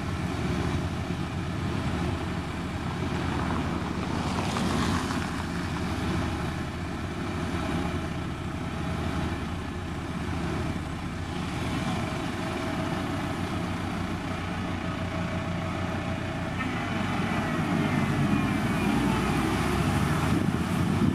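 Diesel engine of a SANY STG190C-8S motor grader running steadily under load while the blade pushes soil. It grows louder over the last few seconds.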